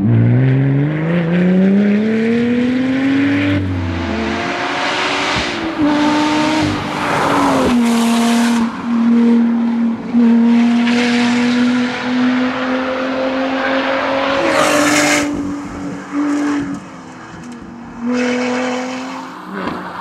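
Supercharged V6 engine of a Lotus Exige rally car under hard acceleration, its pitch climbing steeply and dropping at a gear change about four seconds in, then running at fairly steady revs through a long stretch, with rushes of noise over it and a lift off the throttle near the end.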